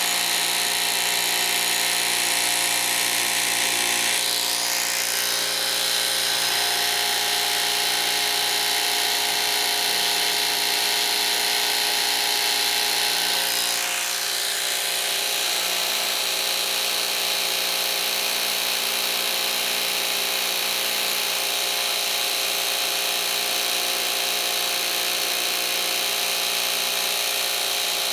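Cordless Milwaukee M18 Fuel barrel-grip jigsaw, set to its fastest speed, running steadily with its blade cutting a coping profile in painted wood trim molding.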